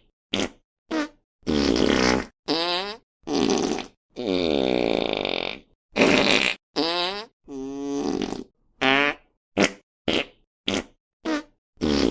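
A rapid string of about fifteen fart sound effects, short pops and longer buzzing ones, each separated by a brief silence. The longest, about four seconds in, lasts nearly two seconds with its pitch bending.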